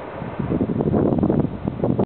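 Freight train cars rolling past with a noisy rumble and irregular clatter, growing louder about half a second in, with wind buffeting the microphone.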